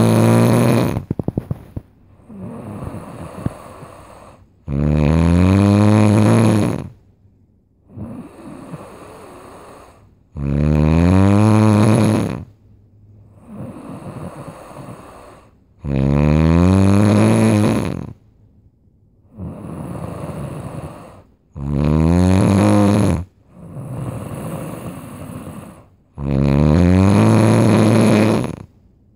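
Loud snoring in a steady rhythm. A harsh, rising snore of about two seconds comes roughly every five and a half seconds, five times, with a quieter breathy exhale between each. A short rattle follows the first snore, about a second in.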